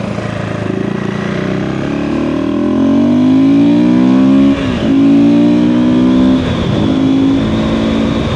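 KTM 390 Enduro R's single-cylinder engine, breathing through a DNA Stage 2 air filter and a de-catted Coober pipe, accelerating under load with rising revs and audible intake noise. The revs dip sharply twice, about halfway through and again a little later, as it shifts up, then pull on steadily.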